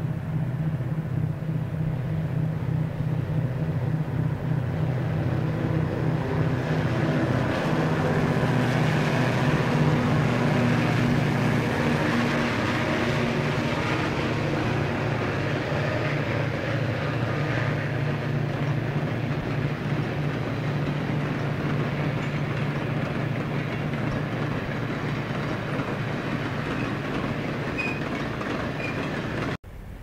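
Grand Trunk Western EMD SD40 diesel locomotives passing under power, their 16-cylinder two-stroke engines running steadily, the engine note dropping slightly about seven or eight seconds in, with the rolling noise of freight cars swelling behind them. The sound cuts off abruptly near the end.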